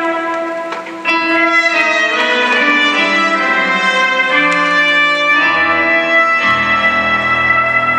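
Music with brass playing held, changing notes; deeper bass notes join about five and a half seconds in.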